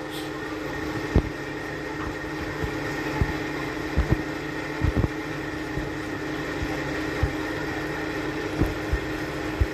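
Thick chicken curry with coconut and poppy-seed paste bubbling in a pan, giving short pops at uneven intervals over a steady fan-like hum.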